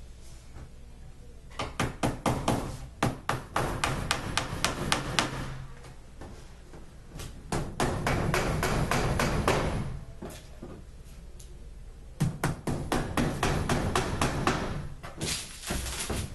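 Claw hammer tapping small nails into the thin back panel of an IKEA HEMNES dresser: quick runs of sharp strikes, several a second, broken by short pauses, with a brief rasping noise near the end.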